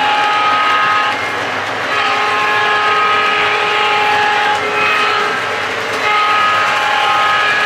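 Diesel air-horn sound from the Lionel Railsounds II board in a Williams E7 O-gauge locomotive, a chord of several notes blown in separate blasts: long, long, short, then long again, the grade-crossing signal. The model train's wheels rumble on the track underneath.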